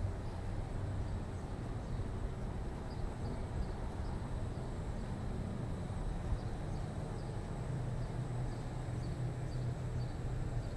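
City street ambience: a steady low hum under even background noise, with faint, short high chirps repeating irregularly from about three seconds in.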